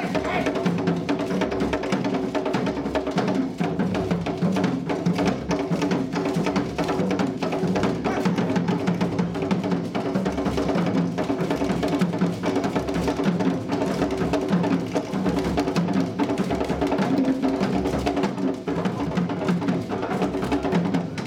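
Percussion-driven music with a steady, dense drumbeat and sharp clicking strokes.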